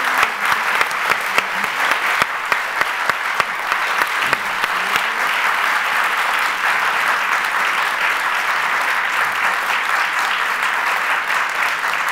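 Audience applause: a dense, steady crackle of many hands clapping. A few sharper, closer claps stand out over the first few seconds.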